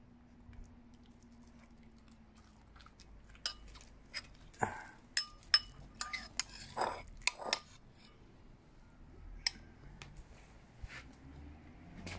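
A metal spoon clinking and scraping against a bowl as it scoops raw chicken mince. A quick run of sharp, ringing clinks lasts about four seconds, starting about a third of the way in, followed by a few fainter knocks.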